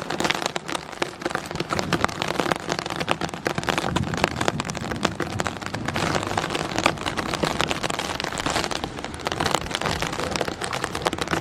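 Rain falling, with many drops striking a surface close to the microphone as dense, sharp ticks over a steady hiss.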